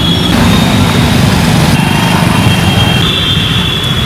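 A motor running steadily: a dense low rumble with a thin high whine above it.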